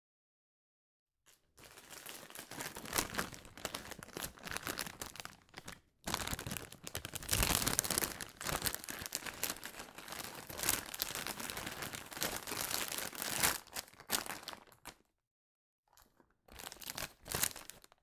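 A foil-lined potato chip bag being handled and pulled open: crackling, crinkling film noise in bursts, starting about a second in, with brief breaks near six seconds and near fifteen seconds.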